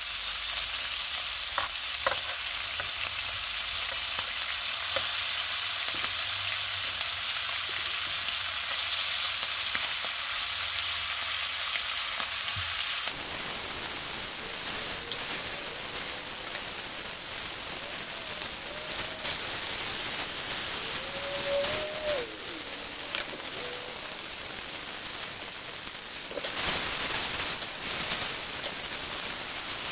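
Pieces of meat frying in butter in a pan: a steady hiss of sizzling fat, with a few light clicks of metal tongs against the pan early on as the pieces are turned. The sizzling grows louder near the end.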